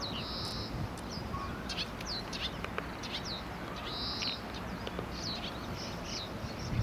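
Small birds chirping: a string of short, high notes that slide downward, with a longer held high note about half a second in and again about four seconds in.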